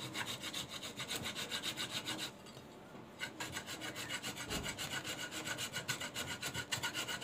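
A wooden carving being filed by hand: quick, even back-and-forth strokes, about four or five a second, with a pause of about a second after two seconds.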